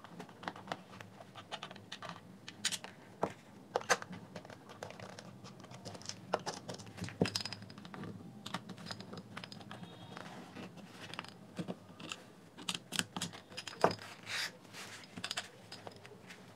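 Irregular small clicks, taps and scrapes of hard plastic as a JBL Flip speaker's housing is handled and unscrewed with a small screwdriver during disassembly.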